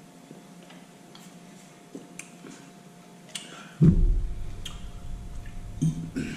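Soft, irregular clicks of someone chewing food close to the microphone. About four seconds in, a loud low rumble with a few thumps sets in and lasts a couple of seconds.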